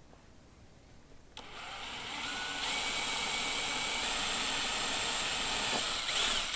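A small electric motor starts about a second and a half in, builds up over a second and runs steadily with a strong hiss, then cuts off suddenly near the end.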